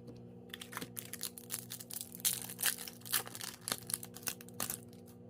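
Foil trading-card pack wrapper being torn open and crinkled: a stream of irregular crackles and small tearing sounds.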